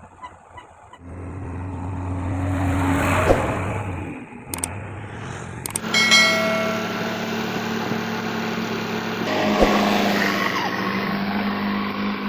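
JCB 3DX backhoe loader's diesel engine running hard at working revs, picking up about a second in and easing off briefly near the middle, with a couple of sharp knocks.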